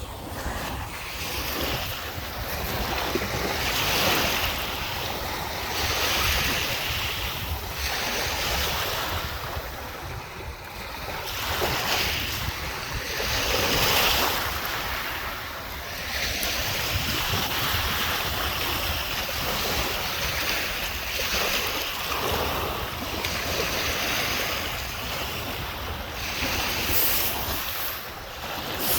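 Lake Michigan waves breaking and washing on the beach, the rush swelling and fading every couple of seconds, with wind rumbling on the microphone.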